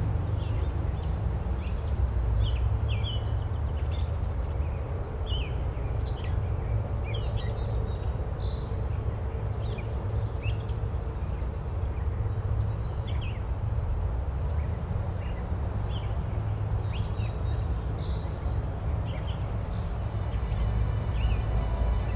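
Small birds chirping and calling repeatedly over a steady low rumble.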